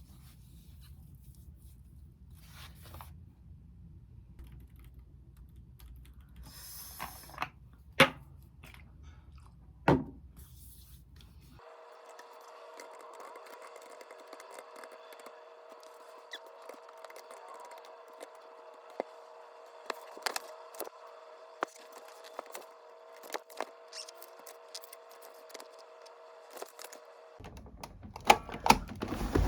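Small handling sounds of everyday activity: scattered sharp clicks, scrapes and tearing noises. A steady, low-pitched hum of two tones runs through the middle stretch, and the sound changes abruptly twice, at edits.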